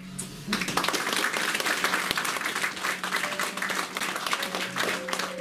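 Small audience applauding, starting about half a second in and continuing steadily.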